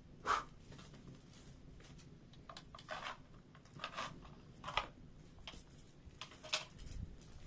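A handful of short, irregular scrapes and knocks of gear being handled, the loudest right at the start, over a low background rumble.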